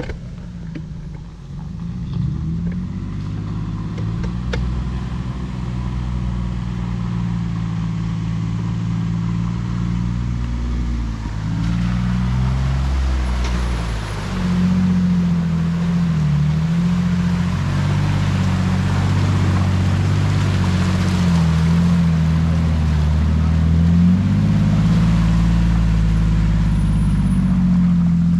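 Jeep engine running at low revs off-road, its pitch shifting up and down as the throttle changes. From about twelve seconds in, a steady hiss joins it and the whole sound grows louder.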